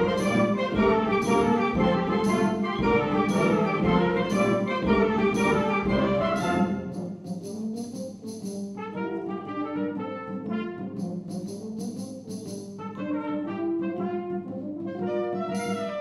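Concert wind band of brass, woodwinds and percussion playing loudly, with a steady pulse of percussion strikes. About six and a half seconds in it drops to a quieter, lighter passage.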